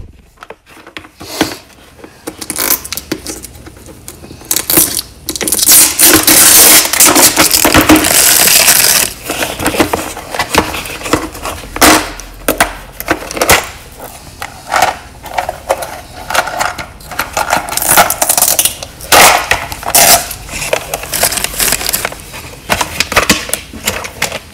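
A clear plastic test-lead case being worked open with both hands and the tape holding it shut pulled off, close to the microphone: irregular plastic clicks, clatters and scraping. A longer harsh rustle runs from about six to nine seconds in.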